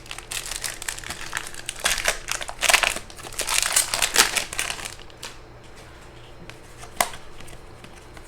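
Trading card pack wrapper crinkling as it is torn open, in dense bursts for about the first five seconds, then a single sharp click about seven seconds in.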